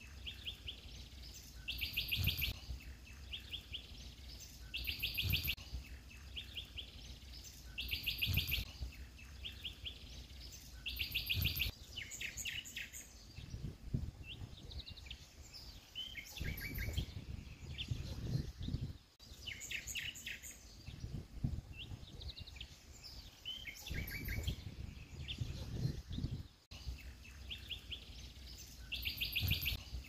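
Songbirds singing in dense shrubbery: a short, fast trill of repeated high notes comes back about every three seconds, with scattered softer chirps between, over a low rumble.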